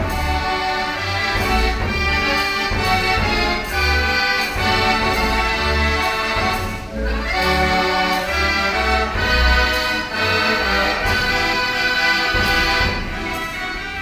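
Decap dance organ 'De Kempenaer' playing a tune: organ pipes and accordions over a regular low bass beat.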